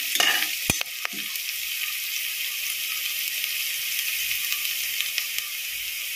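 Sliced onions, ginger-garlic and whole spices sizzling steadily in hot oil in a steel pot, being fried until they turn reddish. A spoon clicks and scrapes against the pot a few times in the first second.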